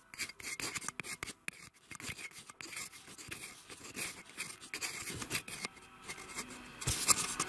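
Irregular, rapid scratching and clicking, uneven in loudness, with a dull thump near the end.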